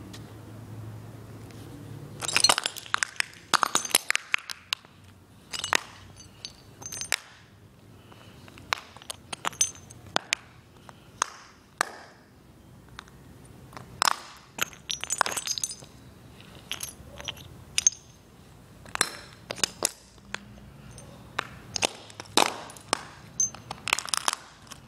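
Broken piggy bank shards being stomped and crushed under sneakers on a concrete floor: sharp cracks, crunches and clinks of breaking pieces, coming in clusters from about two seconds in.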